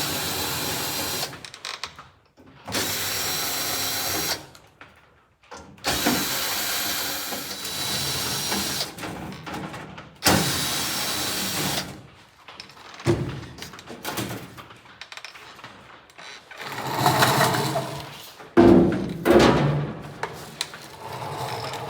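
Power drill running in four bursts of one to three seconds each, then irregular knocks and rattles of parts being handled.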